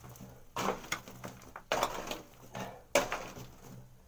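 Metal digging tool chopping and scraping into hard, stony white earth, three main strokes about a second apart with smaller scrapes and scattering soil between them.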